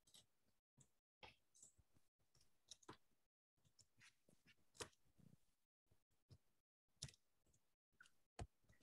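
Near silence: faint room tone with scattered soft clicks, the clearest about five seconds in.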